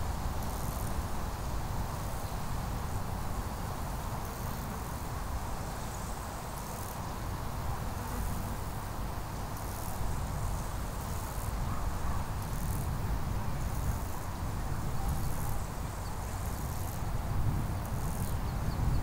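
Insects chirping in short high-pitched trills, roughly one every second or so, over a steady low rumble of outdoor background noise.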